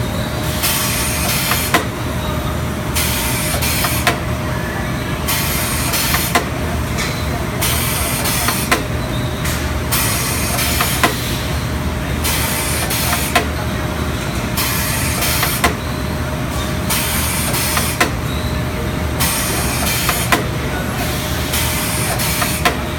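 STEEN ST 828 poultry machine running steadily on chicken drumsticks, with a sharp knock about every two and a half seconds and a hiss that switches on and off about once a second over a constant hum.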